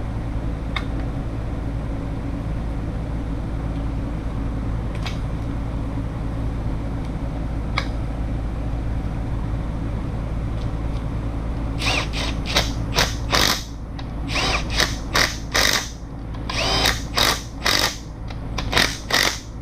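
A handheld power drill/driver run in about a dozen short trigger bursts, starting about twelve seconds in, driving the cam sprocket bolts into the camshaft. Some bursts rise in pitch as the motor spins up.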